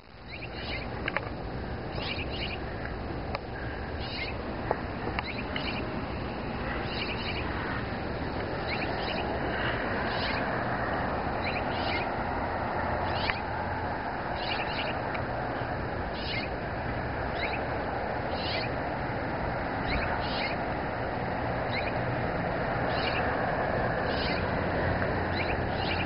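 Short, high bird chirps repeating about once a second, often in pairs, over steady background noise.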